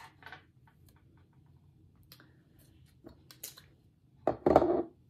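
A perfume bottle being handled: a few small clicks and taps of glass and cap, then, a little after four seconds in, a short loud rush of air lasting about half a second.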